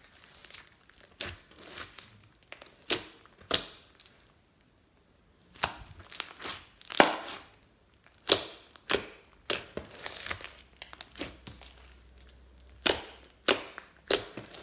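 Sticky glitter slime being stretched, folded and pressed by hand, giving irregular wet pops and crackles. There is a short quiet pause about four seconds in.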